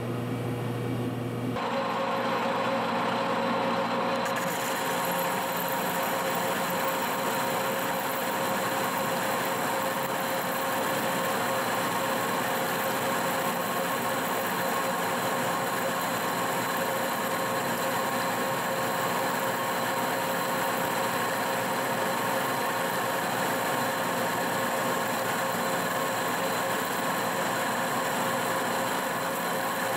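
Monarch engine lathe taking one heavy roughing cut on a 3-inch steel bar, turning it down to 2 3/4 inch. The cut comes in about a second and a half in, then runs steadily: a continuous machining noise with a steady machine hum under it.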